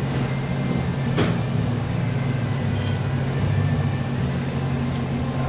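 Steady low mechanical hum, with a short sharp noise about a second in.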